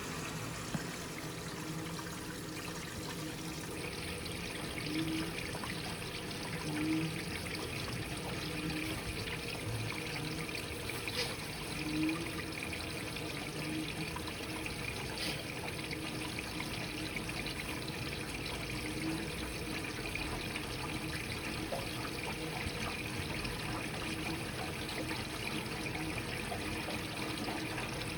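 Electrolux Quickwash commercial washing machine filling with water at the start of a rinse, a steady rush of water into the drum.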